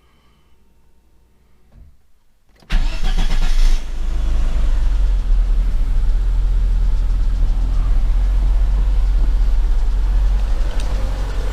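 ZAZ Sens four-cylinder petrol engine starting about three seconds in: it catches suddenly, flares briefly high, then settles into a steady idle. This is the first start after an engine rebuild with newly bushed connecting-rod small ends.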